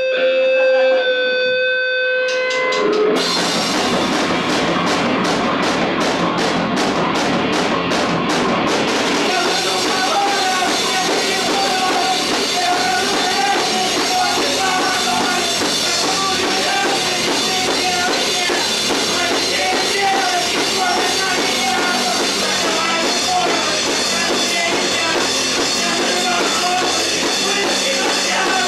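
Rock band playing live: a few held electric guitar notes, then about three seconds in the drum kit and the rest of the band come in with even sharp hits, about three a second. From about nine seconds the band plays a dense, loud full passage.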